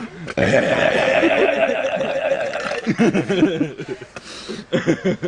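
A man's long drawn-out belch lasting about two and a half seconds, followed by a few shorter vocal bursts and a breathy rush of air.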